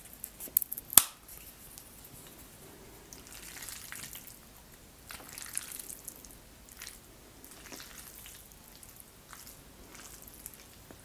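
Wooden chopsticks click sharply a few times about a second in, the loudest click then, then lift and stir sauce-coated jajangmyeon noodles, with soft wet, sticky squelching.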